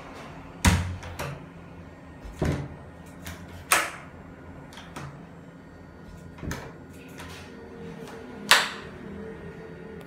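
Wooden door with a steel lever handle being pulled and pushed, knocking and rattling against its frame and latch about six times. The sharpest knocks are about a second in and near the end.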